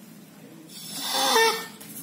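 Old dog giving one short breathy whine about a second in, turning briefly into a pitched note before it fades.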